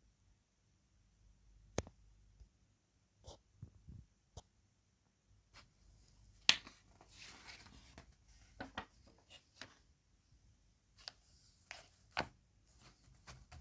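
Scattered clicks, taps and rustles of small objects being handled, with the loudest knock about six and a half seconds in.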